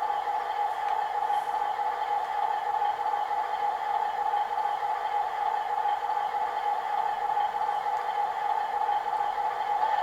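Sound decoder of an OO gauge model of the Bulleid 1Co-Co1 diesel 10202 playing its recorded diesel engine running sound through the model's small speaker, steady and unchanging.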